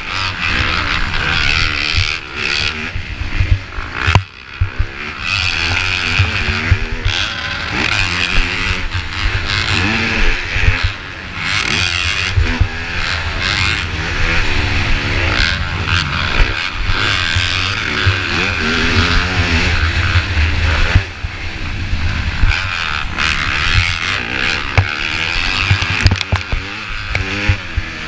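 Motocross bike engine heard close up from on the bike, revving hard and falling off repeatedly with throttle and gear changes, over heavy wind rumble, with sharp knocks from the ruts and jumps.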